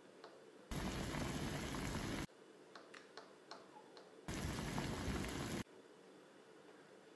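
Pot of green bananas boiling on a stovetop burner: a bubbling hiss heard twice, each time for about a second and a half, starting and stopping abruptly. Between the two is faint room tone with a few small clicks.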